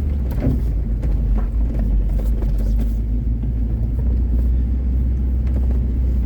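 Car engine and drivetrain running with a steady low rumble as the car drives along a snowy mountain road, heard from inside the cabin, with occasional small knocks.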